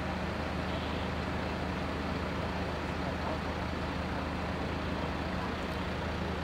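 An engine running steadily with a low, unchanging hum.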